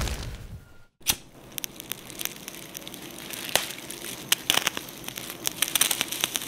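Crackling-fire sound effect: irregular sharp pops and snaps over a low hiss, starting with a sharp crack about a second in, after the fading tail of a louder sound.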